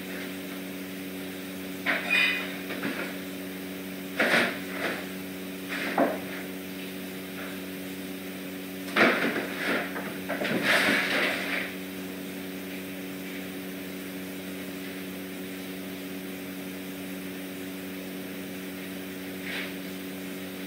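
Steady hum of room equipment, with short bouts of knocking and rustling every few seconds, busiest around nine to twelve seconds in, then only the hum.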